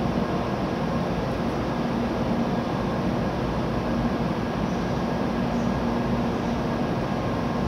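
Steady whirring hum of a stopped N700A Shinkansen train's onboard equipment, even in level, with a low droning tone under it.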